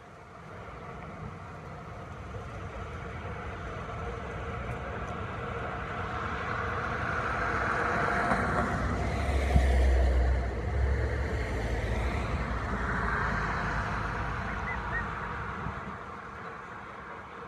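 A motor vehicle passing by: its noise builds steadily, peaks with a deep rumble about ten seconds in, and fades away.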